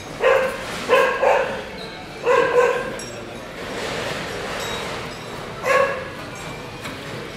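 A dog barking in short, high-pitched barks: a few in quick succession over the first three seconds, then one more near the end.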